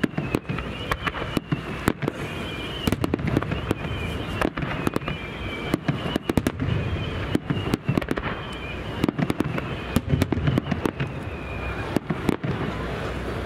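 A Japanese star mine fireworks barrage: aerial shells launching and bursting in quick succession, sharp bangs several a second at uneven spacing over a continuous rumble. A wavering high tone recurs every second or two.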